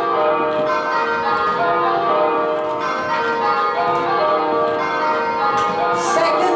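A ring of church tower bells in change ringing, the bells striking one after another in an even rhythm with their tones overlapping. This is kaleidoscope ringing, in which pairs of bells hold long places, striking four blows in the same position before swapping.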